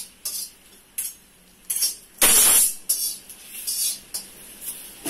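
Metal spatula scraping and stirring in a metal kadhai on a gas stove: a run of short scrapes, with one louder metallic clatter about two seconds in.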